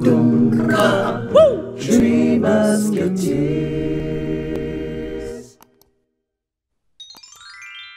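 Intro jingle of voices singing, ending in a held chord that cuts off abruptly a little past halfway. After a short silence, near the end comes a click and a quick rising run of bright chime notes.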